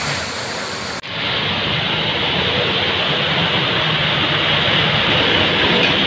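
Motor vehicles driving through a flooded street: water splashing up from an auto-rickshaw's wheels, then, after an abrupt cut about a second in, a steady mix of engines running and water churning under the wheels of three-wheeled carriers and a truck.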